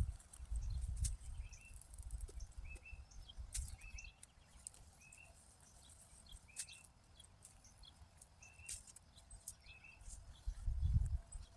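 A bird giving short chirps over and over, about one a second, over scattered crackles and rustles of weeds and grass being pulled from a garden bed. A low handling rumble comes near the start and again near the end.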